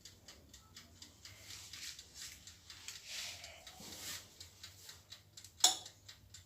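Rapid, light clicks of a fork's tines pressing the pastry edge down against the board as a meat pie is sealed, with soft rustling of the dough and one sharper knock near the end.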